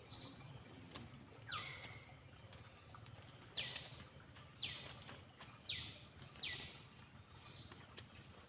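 A bird calling again and again in short, steeply falling notes, about six of them, over a steady high-pitched insect drone.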